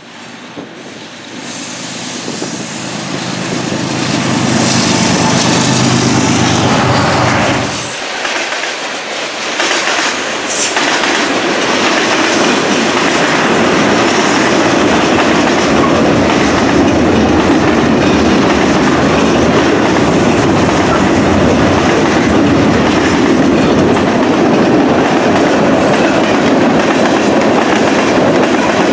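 A Norfolk Southern freight train's lead diesel locomotives, an ES44DC and an SD80MAC, come closer and pass with their engines running, growing loud over the first few seconds. About eight seconds in, the engine sound drops away, and a long string of manifest freight cars follows, rolling steadily past with wheels clicking over the rail joints and crossovers.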